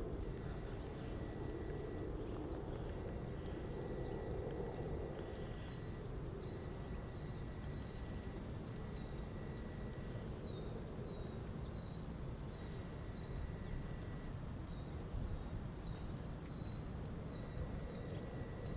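A small bird repeating a short high chirp over and over, roughly two a second, over steady low outdoor background noise.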